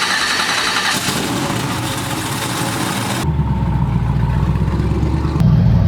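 1969 Chevrolet Camaro's LSX V8 engine running, heard in short edited cuts: a noisier, harsher stretch over the first three seconds, then a steady low-pitched idle that gets louder near the end.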